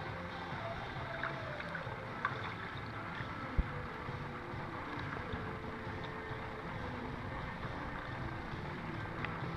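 Swimming-pool water lapping and splashing at the tiled edge over a steady background rumble, with a few small clicks and one sharp knock about three and a half seconds in.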